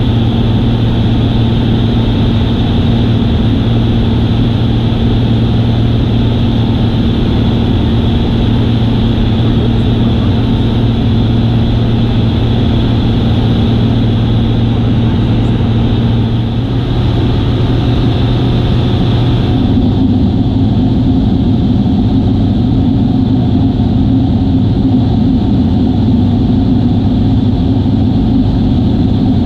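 Piston engine and propeller of a single-engine light aircraft in cruise, a loud steady drone inside the cockpit. The tone changes about two-thirds of the way through, with less hiss and a rougher low hum.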